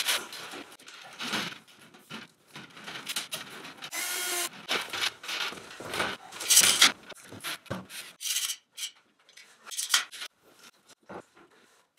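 Irregular rubbing, scraping and clicking of white aluminium multilayer composite water pipe being handled and fitted along the wall. There is a short squeak about four seconds in, and the loudest scrape comes a little past the middle.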